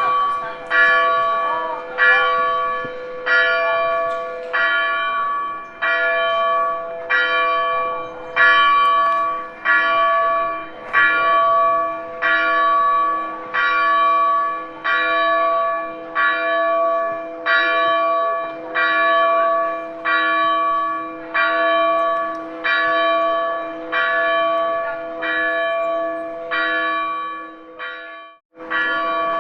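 A single church bell tolling, struck steadily about once a second, each stroke ringing on into the next. Near the end there is a brief break before the strokes resume.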